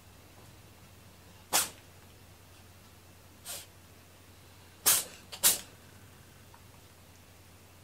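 A cat sneezing several times: a sharp sneeze about a second and a half in, a fainter one near the middle, then three in quick succession about five seconds in.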